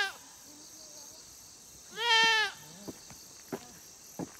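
A goat bleating: one bleat of about half a second, about two seconds in, with the tail end of another right at the start, and a few faint clicks after it.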